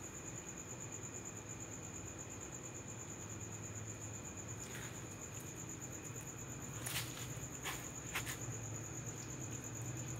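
Crickets trilling steadily in one unbroken high-pitched trill. A few short clicks and taps sound between about five and eight seconds in.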